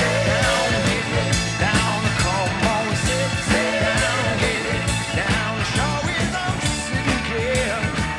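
Rock song playing: a full band with a regular drum beat and steady bass under a wavering lead melody line.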